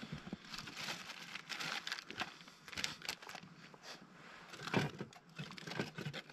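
Irregular rustling and crinkling close to the microphone: a man's jacket brushing and shifting right by the camera as he leans over the snowmobile, with a louder crackle about five seconds in.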